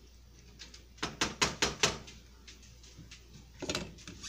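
A spatula knocking against a skillet: five quick sharp knocks about a second in, then one more near the end.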